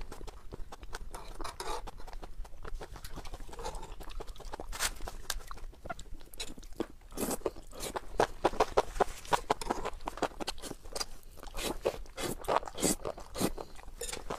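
Close-miked eating sounds from a lapel microphone: wet slurping and chewing of spicy enoki mushrooms in chili sauce, a quick run of sharp clicks and smacks, with a metal fork clinking and scraping on a metal baking tray.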